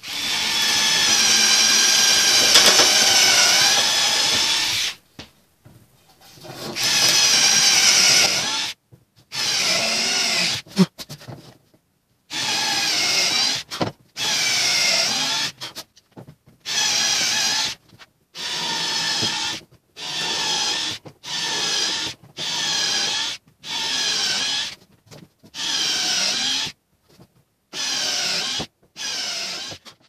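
Handheld cordless drill boring a row of holes through a wooden board. It runs in stop-start bursts: one long run of about five seconds first, then more than a dozen short runs of about a second each with brief pauses between, one hole after another.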